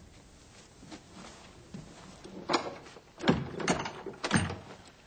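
Several knocks and thuds on wood in the second half, three or four of them about half a second apart, the heaviest two about a second apart.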